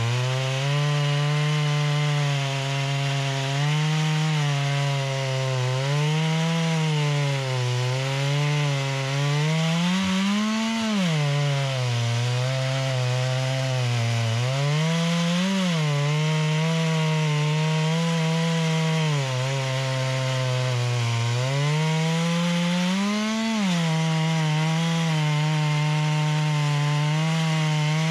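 Holzfforma G660 two-stroke chainsaw running under load in a chainsaw mill, ripping a pine log into planks. The engine pitch sags and wavers with the cut and rises briefly three times, about a third, halfway and four-fifths of the way in.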